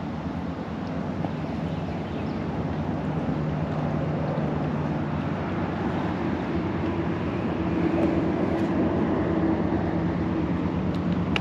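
Engine droning steadily as it gradually grows louder, with a low hum that shifts slightly in pitch.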